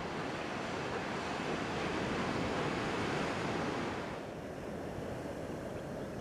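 Surf breaking and washing onto a sandy beach, a steady rush of waves. About four seconds in it drops to a quieter, duller rush.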